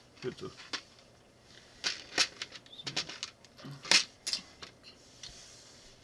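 Small plastic clamp bricks clicking and rattling as hands rummage through them in plastic tubs, a string of sharp clicks loudest about four seconds in and thinning out near the end.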